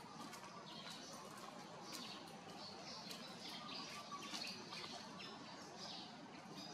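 Birds chirping: many short, high chirps, some falling in pitch, scattered throughout over faint outdoor background noise.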